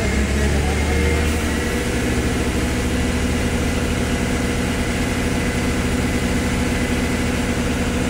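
Mobile crane's diesel engine running at a steady speed.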